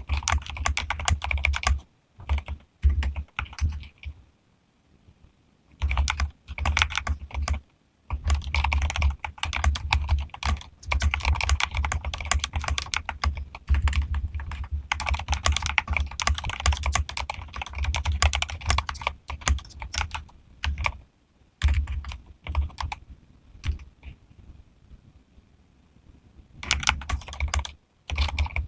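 Typing on a modded mechanical keyboard with Akko Rosewood switches: fast runs of keystrokes in bursts, broken by short pauses about four seconds in and again a few seconds before the end.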